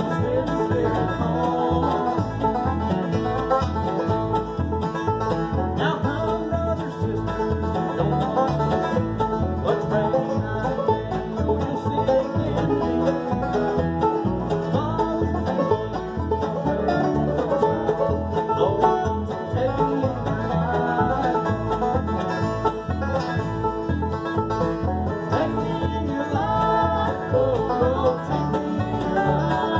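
Bluegrass jam band playing: acoustic guitar, five-string banjo, fiddle and upright bass together, the bass plucking a steady beat under the banjo and fiddle.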